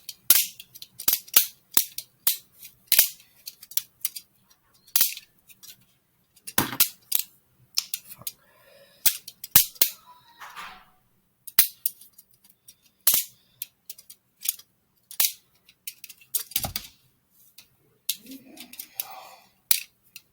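Homemade Lego butterfly knife being flipped open and closed, its plastic handles clacking together in sharp, irregular clicks, some coming in quick pairs.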